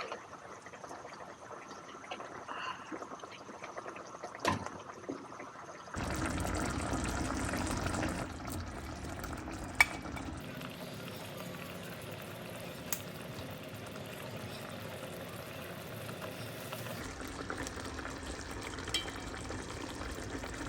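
Liquid pouring and running, with a few sharp light clicks and knocks. The sound changes abruptly a few times along the way.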